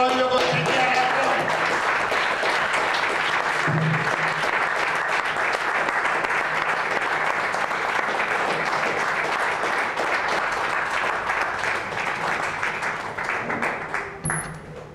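Audience applauding steadily, thinning out near the end.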